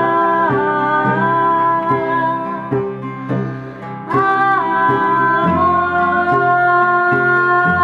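A folk band playing live: women singing long held notes in harmony over strummed acoustic guitars and a cello. The singing drops out briefly about three seconds in and comes back a second later.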